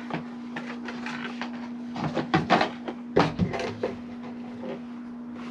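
A quick series of sharp clicks and knocks, clustered in the middle, over a steady low hum: hardware being handled while a low-voltage landscape-lighting transformer is mounted on a post.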